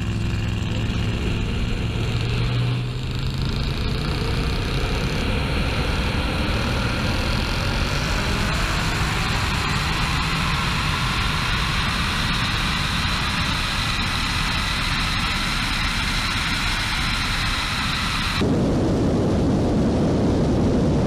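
Two race cars at full throttle side by side, heard from a camera mounted outside one of them: a steady rush of wind over the microphone with the engines droning underneath. About 18 seconds in, the sound changes abruptly to a lower, rougher rumble.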